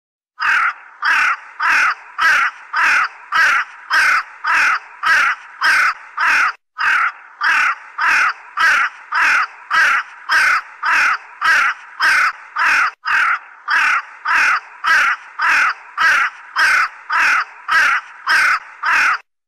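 Common raven calling over and over, evenly spaced at about two calls a second, broken off twice for an instant.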